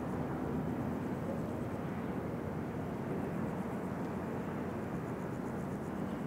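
Steady low outdoor rumble with no distinct events, holding an even level throughout.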